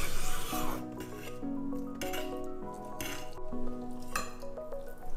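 Chef's knife cutting raw pork belly on a wooden cutting board, with a few sharp knocks and metal clinks, over steady background music.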